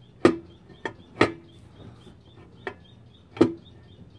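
Five sharp, irregularly spaced knocks and clacks of metal parts from work on a GY6 scooter engine's CVT transmission case, each with a short ring.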